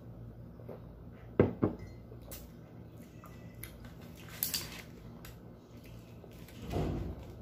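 A ceramic mug set down on a table with a sharp double knock about a second and a half in. Then a metal spoon scrapes and taps in a plastic food container, once near the middle and again near the end.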